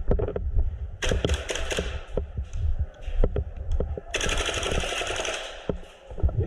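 Airsoft guns firing: scattered sharp shots and clicks, with a dense run a second in and a burst of rapid automatic fire about four seconds in lasting about a second and a half.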